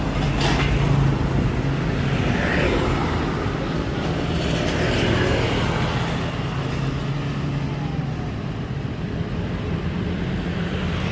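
Bus engine running steadily, with road traffic noise around it.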